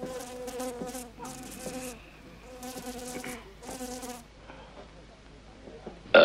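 Dubbed-in comic buzzing sound effect: a steady-pitched buzz in about five short bursts over the first four seconds. A loud, brief sound that falls in pitch breaks in right at the end.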